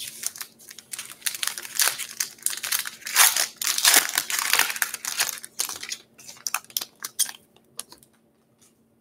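Crimped foil wrapper of a 2019 Topps Pro Debut baseball card pack being torn open and crinkled by hand. It makes a dense run of crackling that thins out into a few light clicks near the end.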